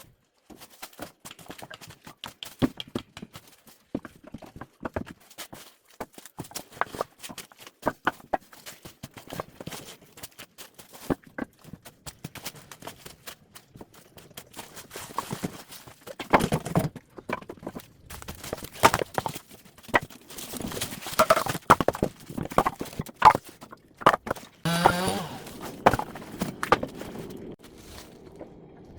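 Split firewood logs being handled and stacked, knocking and clunking against each other in an irregular run of hollow wooden knocks that grows busier and louder in the second half.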